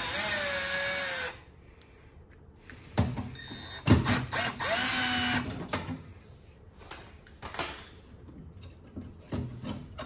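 Milwaukee cordless drill spinning out the quarter-inch screws that hold a gas furnace's burner manifold. The motor whines in two runs of about a second each, one at the start and one around five seconds in, with sharp knocks and handling clatter between and after.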